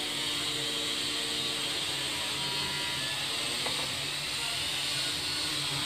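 Steady background hum and hiss, with one faint light click about three and a half seconds in.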